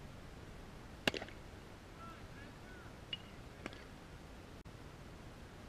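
A pitched baseball popping into a catcher's mitt: one sharp pop about a second in, followed by a couple of faint clicks.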